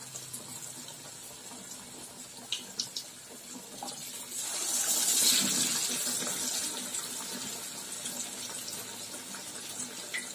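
Batter-coated cabbage-leaf chops deep-frying in lightly heated oil in a steel kadai: a steady sizzle that swells for a few seconds about halfway through as another chop is slipped into the oil. A couple of light clicks come just before the swell.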